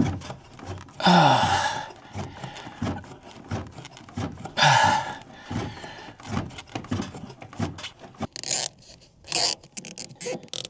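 A man's two heavy breaths of effort about a second long, at about one and four and a half seconds in, the first with a falling grunt, among light clicks and scrapes from handling the mini-split's quick-connect line fittings. Several sharper clicks come near the end.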